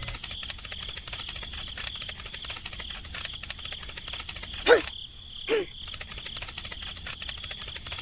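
Cricket-like chirping: a fast, steady trill of clicks with a high ringing tone. About halfway through come two short swooping squeaks, a little under a second apart.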